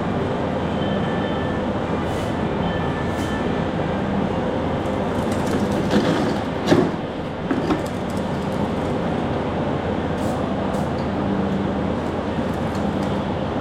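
Steady running noise of machinery, with a few knocks about six to eight seconds in.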